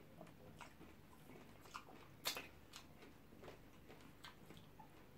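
Faint eating sounds: soft chewing and wet mouth smacks as pounded yam with ogbono soup is eaten by hand, with a few small clicks. The sharpest smack comes a little over two seconds in.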